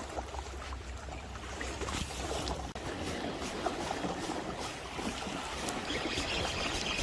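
Small sea waves lapping and splashing against the rocks of a seawall, with a steady low rumble under it in the first few seconds. The sound breaks off briefly about three seconds in and carries on.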